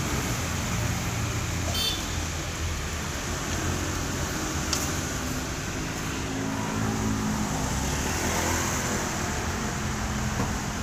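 Road traffic going by: a steady wash of vehicle engine and tyre noise with a low engine hum that shifts as vehicles pass, and a couple of brief clicks.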